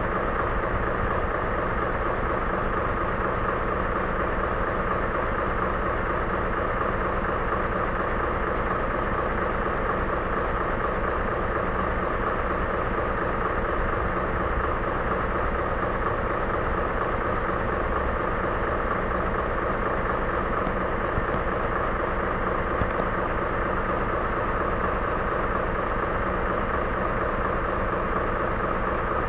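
A railway engine idling: a steady, unchanging hum with a prominent mid-pitched tone.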